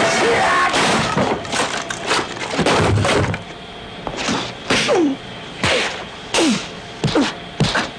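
Crashing and breaking for about three seconds, then a string of separate sharp knocks and hits, several followed by a short falling tone.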